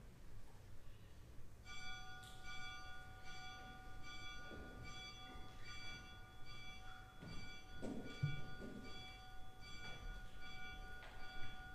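Soft sustained chord of bell-like tones that starts about two seconds in and holds without dying away, its higher notes pulsing roughly every two-thirds of a second. Faint low rustling noises sound under it a few times.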